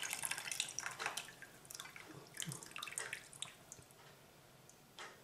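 Hot ginger infusion pouring from a stainless saucepan through a mesh strainer into a ceramic cup: a soft trickle with drips that thins out and stops after about three and a half seconds.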